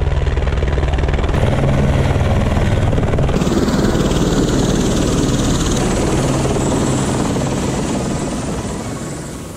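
Helicopter running close by: a loud, steady whir of rotor and turbine with a low rotor beat. It fades away near the end.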